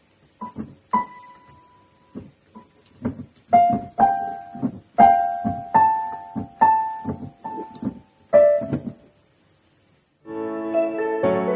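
Piano-voiced electronic keyboard notes pressed by a cat's paws: an uneven run of single notes and small clusters, each ringing and fading. After a short pause, near the end, different music with held chords starts.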